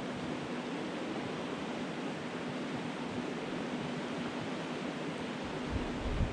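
Steady rush of a river flowing over a shallow riffle. Near the end, wind starts rumbling on the microphone.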